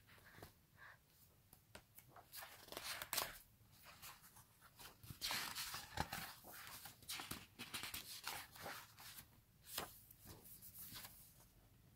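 Pages of a large album photo book being turned one after another: repeated paper swishes and rustles with small sharp clicks, the busiest and loudest stretch about halfway through.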